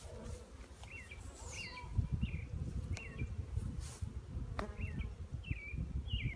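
Honeybees buzzing during a package installation into a top bar hive, with a bird repeating a short chirp several times in the background.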